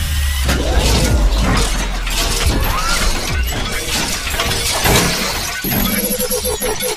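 Sound effects of an animated logo intro: repeated crashing, shattering hits laid over a deep, steady bass rumble.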